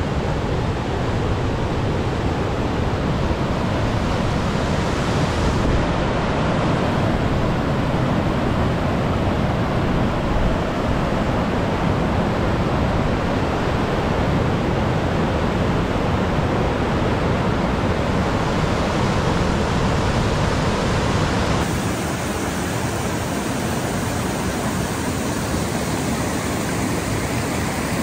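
Whitewater rapids of the Petrohué River rushing over rocks: a loud, steady roar of water. About three quarters of the way through it changes suddenly, becoming a little quieter with less low rumble.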